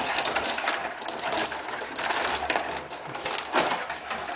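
Rod hockey game in play: a rapid, busy clatter of clicks and knocks as the rods are pushed, pulled and spun, and the players and puck strike each other and the board.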